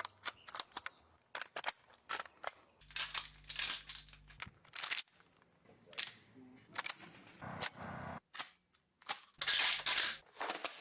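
Gas-powered airsoft guns firing: a string of sharp, irregularly spaced pops, single and in quick pairs, the loudest around nine to ten seconds in.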